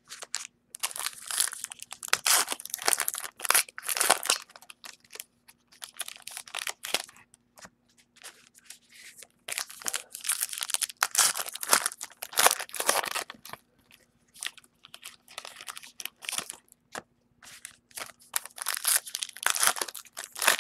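Trading cards and their foil pack wrappers being handled: irregular crinkling and rustling in clusters, with short pauses between, as cards are opened and sorted through.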